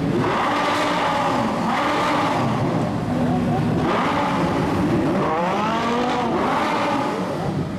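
Several supercar engines revving and accelerating in a tunnel, their pitches rising and falling and overlapping.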